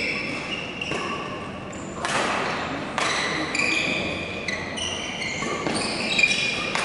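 Badminton rally on an indoor court: court shoes squeaking on the floor in many short, high-pitched chirps as the players move, with a few sharp racket hits on the shuttlecock.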